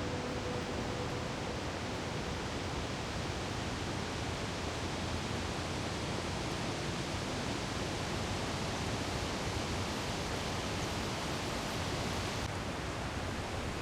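Steady rushing noise, even and unbroken, with a little less hiss near the end.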